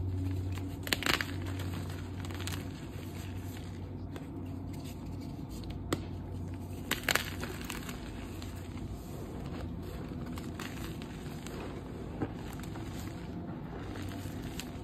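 Gym chalk being crushed by hand: dyed chalk blocks and dusty reformed chalk crunch and crumble in a steady gritty grind. A few sharp cracks come as blocks snap, about a second in, near six and seven seconds, and once near twelve seconds.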